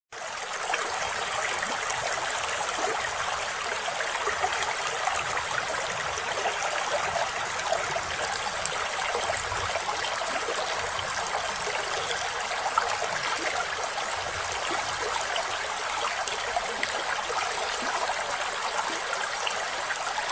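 A rocky stream rushing steadily over rocks. It cuts in out of silence.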